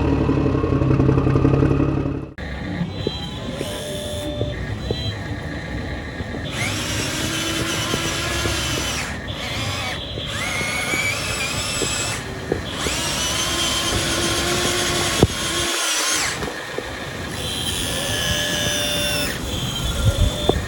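Radio-controlled scale Komatsu PC200-8 excavator working: its small electric motors and hydraulic pump whine in stretches of a few seconds, the pitch rising and falling as they load up and ease off, with short stops between moves. The first two seconds hold a loud, steady, low engine-like hum that cuts off suddenly.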